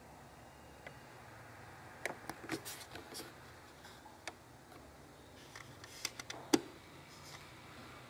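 Faint clicks and taps from a plastic squeeze bottle and a drinking glass being handled as liquid detergent is squeezed into the glass. One sharper tap comes about six and a half seconds in.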